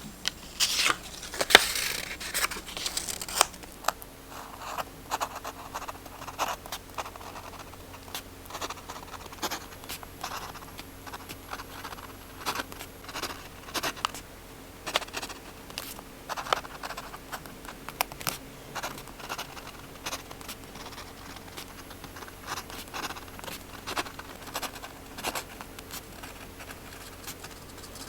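Close-up paper-crafting sounds: a loud paper rasp lasting about three seconds near the start, then many short, soft scratches, taps and rustles of paper being handled.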